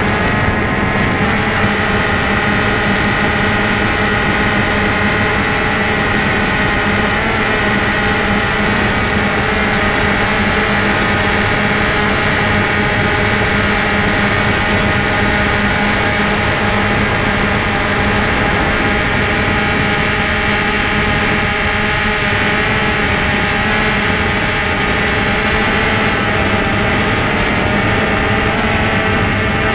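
DJI Phantom 2 quadcopter's four motors and propellers whirring steadily in flight, heard close up from the camera mounted on the drone: a constant buzz with several steady tones that waver slightly in pitch as it manoeuvres.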